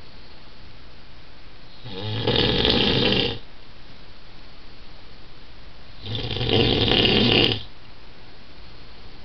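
A man snoring loudly in his sleep: two long snores about four seconds apart, each swelling up over a second or so and then breaking off, with quieter breathing between them.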